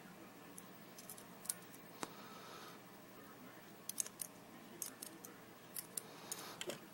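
Faint, irregular light metallic clicks and ticks of small lock parts being handled: pins and springs being picked out of the chambers of a Corbin Russwin LFIC lock core.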